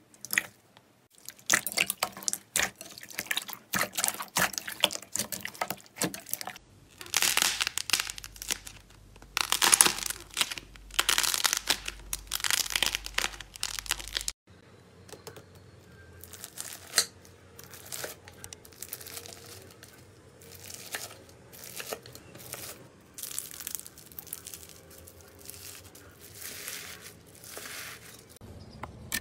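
Slime being poked, squeezed and pressed by hand: wet, squishy crackling and popping in repeated bursts, loud in the first half. After a cut about halfway through, it turns to quieter, regular crunching as a slime packed with small plastic beads is pressed.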